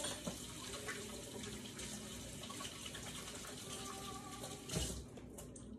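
Kitchen tap running while hands are washed, a steady rush of water that stops with a knock about five seconds in.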